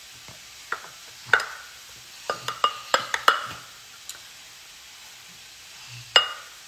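Dishes and utensils clinking and knocking in a kitchen sink as a small child washes them: scattered sharp clinks with a brief ring, most of them bunched between about two and three and a half seconds in, and one more near the end.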